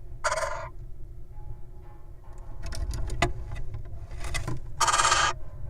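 Little owl giving short, raspy, hissing calls, one near the start and one near the end, about half a second each, with scratchy clicks of movement between them over a steady low hum.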